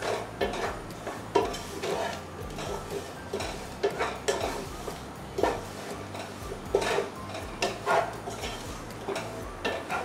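Wooden spatula scraping and knocking against a cooking pot as a thick onion-and-masala mix is stirred, in irregular strokes about once or twice a second.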